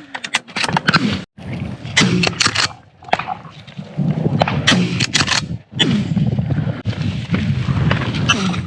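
Shotgun firing several times, sharp reports in clusters over steady outdoor noise.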